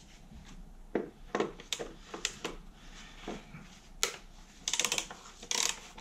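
Ratchet wrench on a socket extension clicking as it turns a fastener on the engine: single clicks and taps at first, then a quick run of clicks near the end.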